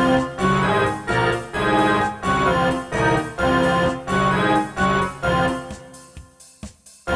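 Black MIDI rendition of the iPhone alarm ringtone on a synthesized organ-like keyboard: thick chords of many stacked notes struck in a steady repeating pattern about twice a second. It thins out and fades over the last second.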